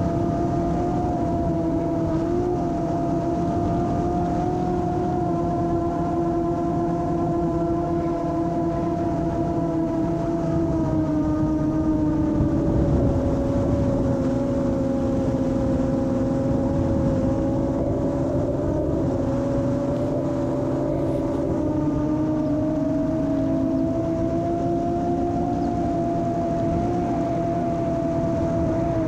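Brushless motors and two-blade propellers of a Molecula FPV M7 long-range quadcopter whining in fast forward flight. The pitch drops for several seconds midway, then climbs back up.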